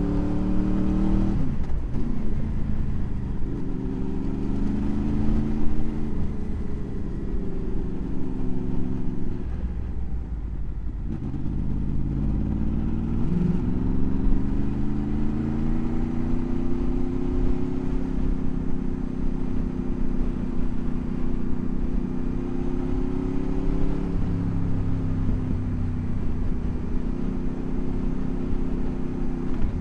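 Motorcycle engine running while riding, its pitch rising as it pulls and dropping sharply a couple of times.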